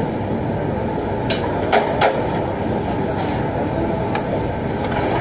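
Steady roar from a commercial kitchen's gas range and extractor hood, with a few sharp clanks of metal pans and utensils between one and two seconds in and one more about four seconds in.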